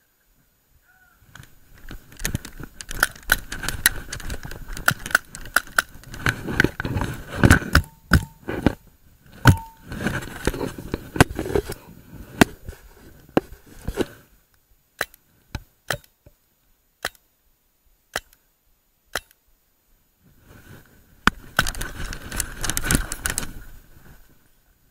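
Movement noise from a paintball player and gear on straw-covered ground: rustling, scuffing and clattering with many sharp knocks. In the middle it thins to single sharp cracks about a second apart, then the rustling and clatter return near the end.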